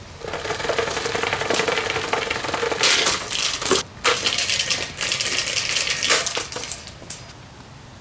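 Impress plastic table fan clattering and rattling hard: a dense run of rapid clicks with a steady hum underneath for the first few seconds. It breaks off briefly about four seconds in, then stops near the end.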